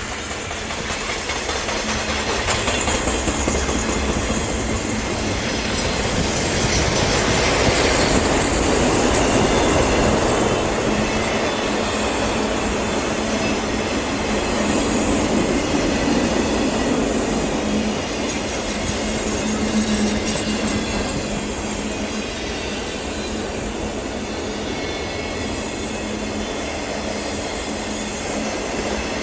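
Canadian Pacific freight train's cars rolling past on the track, a steady continuous rumble and clatter that swells a little about a third of the way in.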